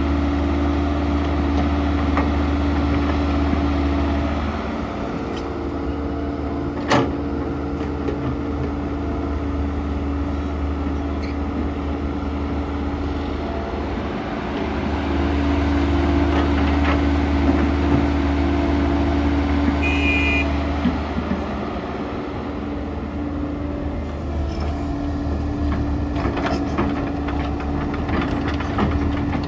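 Kobelco SK120-1 excavator's diesel engine running through a loading cycle, its low note dropping and returning as the load on the hydraulics changes. A single sharp clank comes about seven seconds in, and a short high chirp near twenty seconds.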